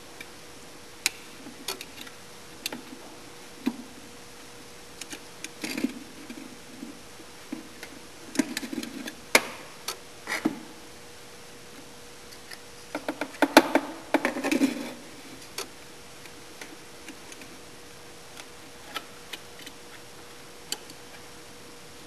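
Scattered small clicks and light clatter of hands working the wires, terminals and a screwdriver in a sawmill's metal control box while the up-down drum switch is swapped. The clatter is busier about six, nine and fourteen seconds in, over a faint steady hum.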